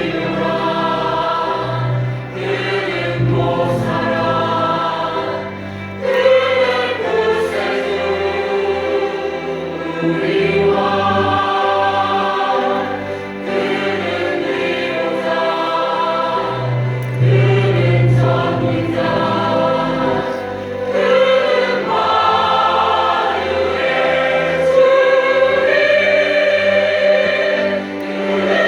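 Combined church choir singing a Christmas cantata anthem in sustained chords that change note every second or two.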